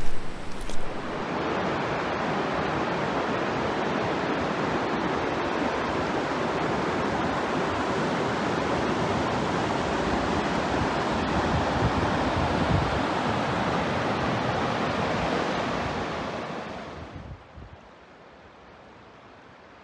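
Steady rushing of a river rapid, water pouring over rocks, after a few brief bumps in the first second. About seventeen seconds in it drops away to a much fainter hiss.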